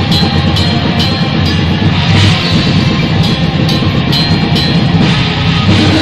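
A black metal band playing live at full volume: distorted guitars and bass over a drum kit, with cymbal hits falling on a steady beat.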